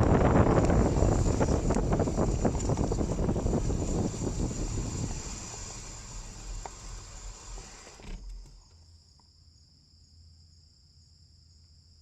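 Wind and road noise from a bicycle ride, fading as the bike slows and dying away about eight seconds in. This leaves insects, crickets or cicadas, buzzing steadily at a high pitch.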